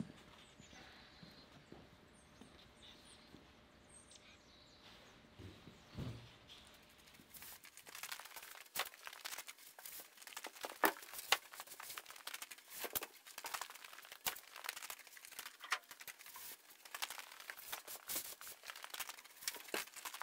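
Faint outdoor ambience with a few thin bird chirps and a thump about six seconds in. Then, from about eight seconds, an irregular run of sharp crackles, squeaks and scrapes as green Kingspan rigid foam insulation boards are slid onto a stack of boards.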